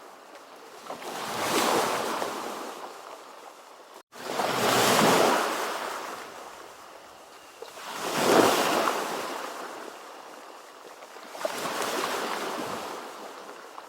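Ocean surf: four waves break and wash in one after another, each swelling and fading over about three seconds. The sound cuts out for an instant about four seconds in.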